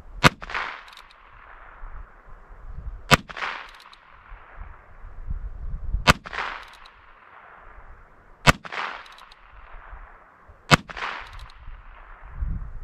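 Five shots from a Heritage Rough Rider .22 Long Rifle revolver carbine with a 16-inch barrel, fired two to three seconds apart. Each is a sharp crack that trails off in a short echo.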